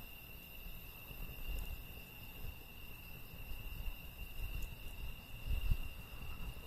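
A steady, high-pitched insect chorus, typical of crickets, over a low uneven rumble, with a few faint crackles from a wood campfire.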